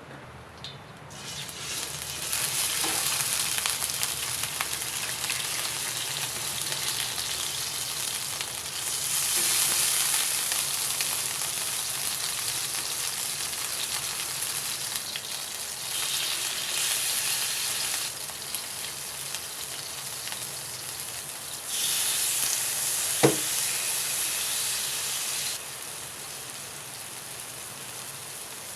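Soy-and-oyster-sauce-marinated pork frying in a little cooking oil in a pan, sizzling steadily. The sizzle swells up about a second in and grows louder again in several surges, with a single sharp click about two-thirds of the way through.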